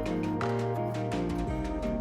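Background music: pitched instrumental notes with a steady beat.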